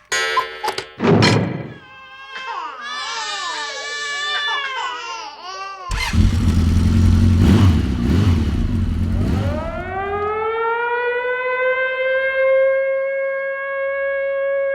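A montage of short sound effects: quick knocks and pitched blips, then several wavering pitched cries, then a loud low rumble. Over the last five seconds a siren winds up, its pitch rising and then holding steady.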